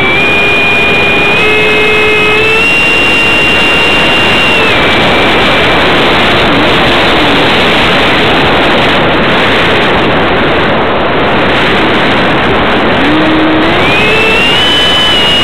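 RC plane's electric ducted fan whining in flight, heard through the onboard camera's microphone under a loud, steady rush of air. The whine steps up in pitch over the first few seconds, drops and fades about five seconds in, then climbs again near the end.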